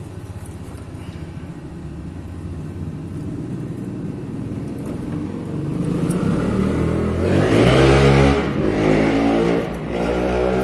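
Freshly overhauled Hyundai Elantra engine running, growing louder about halfway in.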